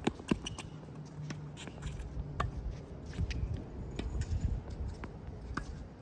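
Tennis rally on a hard court: a sharp racket-on-ball hit about a third of a second in, followed by scattered lighter knocks of ball bounces and shoe steps on the court surface.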